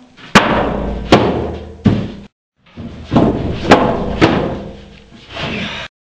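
A series of heavy thumps, about five sharp strikes each followed by ringing, in short cut-together stretches.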